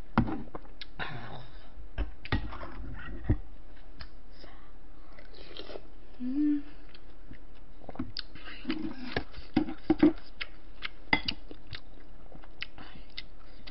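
Close-miked eating sounds: chewing a mouthful of rice and soup, with sharp clicks of a spoon and chopsticks against the bowls. A short hum about six and a half seconds in.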